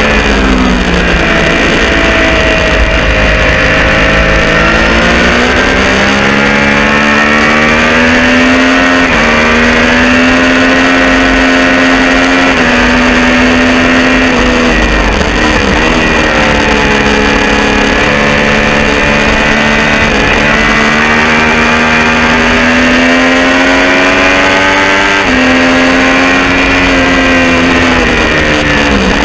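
Triumph Street Triple R 675 cc inline-three with Arrow exhausts run without baffles, at full throttle on track: the engine note climbs with speed and steps through several upshifts, then falls as the bike brakes and downshifts about halfway through and again at the end.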